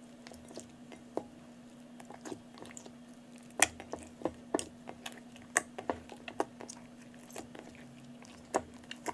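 Slime being kneaded and squeezed by hand, giving irregular sticky clicks and pops, a few louder snaps among many softer ones, over a faint steady hum.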